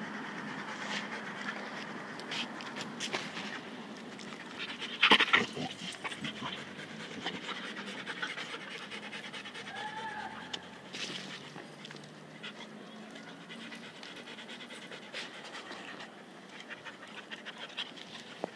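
A dog panting steadily with its tongue out. About five seconds in comes one brief louder knock or scuffle, and near the middle a short rising-and-falling high note.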